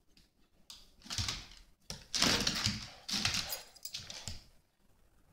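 Small terrier-type dog tussling with a plush toy: about four bursts of scuffling and rustling mixed with the dog's play noises, then quiet near the end.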